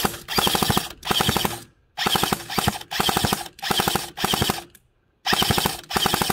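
Battery-powered MK46 SPW airsoft light machine gun firing a string of short bursts, each well under a second long, with rapid, evenly spaced shots inside each burst and brief pauses between bursts.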